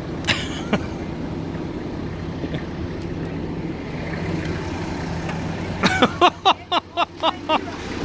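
A minibus engine idling with a steady low hum. Short bursts of voices come in over it near the end.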